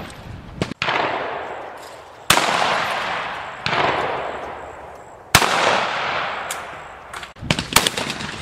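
Shotguns firing at clay targets: about four shots roughly a second and a half apart, each a sharp crack followed by a long fading echo, then a quick cluster of cracks near the end.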